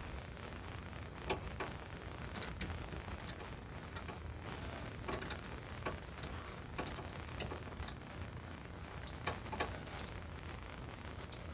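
Scattered small metallic clicks and clinks of hand tools being handled and worked, some in quick pairs or short clusters, over a steady low hum.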